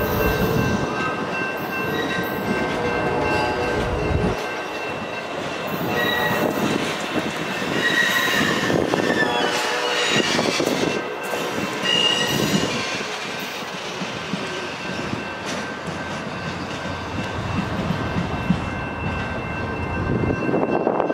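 Amtrak Coast Starlight's Superliner passenger cars rolling past on the rails, with a thin steady high-pitched whine over the rolling noise.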